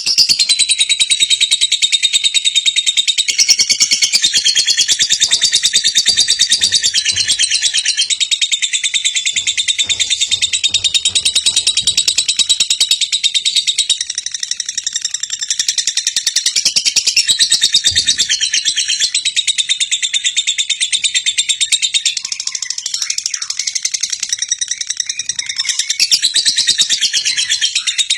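Lovebird in a long ngekek: a high, very rapid chattering trill that runs on without a break, the long-held ngekek prized in lovebird song contests.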